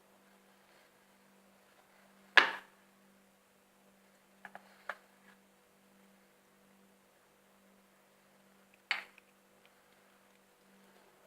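A few short, sharp clicks or smacks over a faint steady hum: a loud one about two seconds in, a small cluster near the middle, and another near the end.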